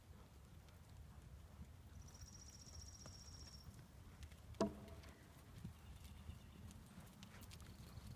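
Faint hoofbeats of a horse cantering on sand arena footing, over a steady low rumble. A high, fast-pulsing trill sounds about two seconds in, and a single sharp knock about halfway through is the loudest thing.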